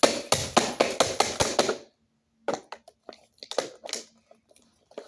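A rapid flurry of about ten sharp blows on the plastic casing and speakers of an Emerson iPod docking radio as it is smashed, followed after a short pause by a few lighter knocks and rattles of loose plastic.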